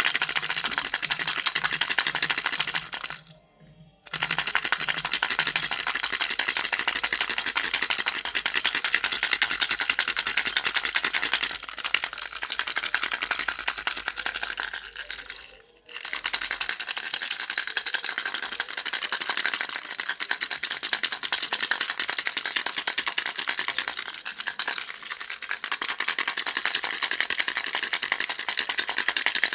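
Baby rattle shaken rapidly and continuously, a dense clattering of small beads, stopping briefly twice: a little after 3 seconds in and again around 15 seconds.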